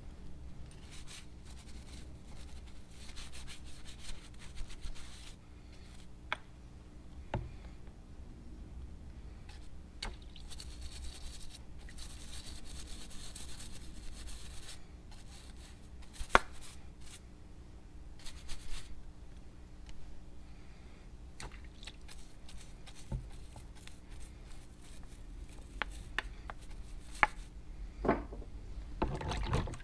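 Hand work on the old meat grinder's metal parts: scattered clicks and light knocks, with a stretch of scraping or scrubbing about halfway through, over a steady low hum.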